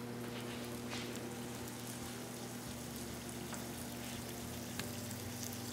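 Empanadas frying in hot oil in a frying pan: a steady sizzle with scattered small crackles, over a steady low hum.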